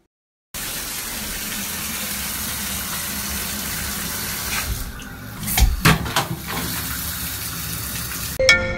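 Water running from a bathtub faucet into the tub as a steady gush, starting about half a second in, with a few knocks about five to six seconds in.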